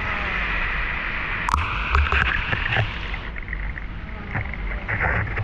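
River water running with a steady rush, broken by a sharp knock about one and a half seconds in and a few more knocks and light splashes just after.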